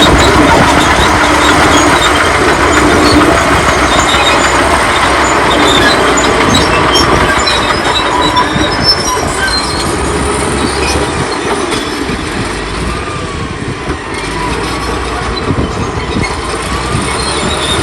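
Old crawler bulldozer working: its diesel engine running and its steel tracks rolling, with some high squealing from the machinery, easing slightly in loudness in the second half.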